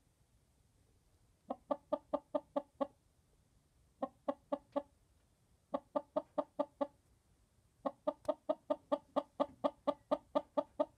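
Hen on a straw nest clucking in quick runs of short, even notes, about five a second. There are four bouts with pauses between them, and the last, longest run comes near the end.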